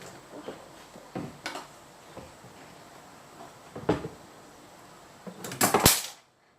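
Handling noises as squishy toys and their packaging are picked up and moved: scattered light knocks and rustles, then a louder cluster of rustling and knocks near the end that cuts off suddenly.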